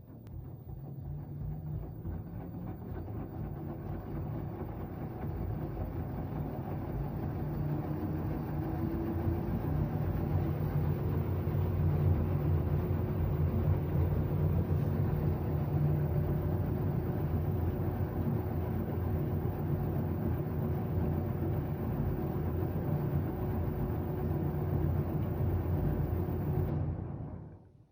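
LG washing machine drum spinning up on its spin cycle: a steady mechanical whir and rumble that builds over the first ten seconds, with a faint rising motor tone, then holds steady. It cuts off suddenly near the end.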